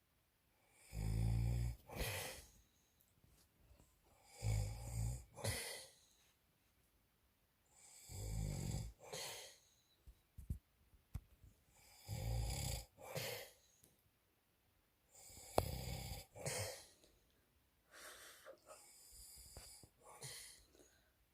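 A man snoring loudly in his sleep: a rough snore on each breath, about one every four seconds, six in all, the last one fainter.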